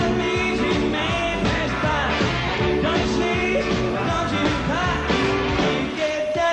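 Rock and roll song: a male voice singing over a full band with drums, bass and guitar.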